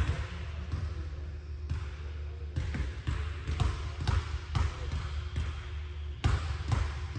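Basketball bouncing on a gym floor in a run of dribbles, roughly two bounces a second at uneven spacing, over a steady low hum.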